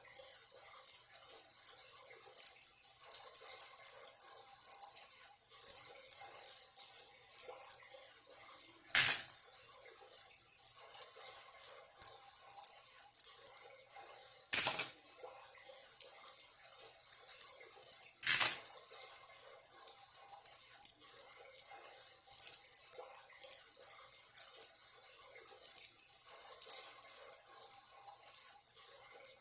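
Coins being sorted by hand: many quick, light clicks and clinks of coins against each other, with three louder clacks spread through. Faint running water in the background.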